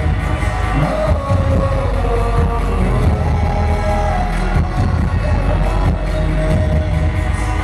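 Live amplified pop music heard from the arena audience: a male lead vocal over a heavy, pulsing bass beat, with crowd noise underneath.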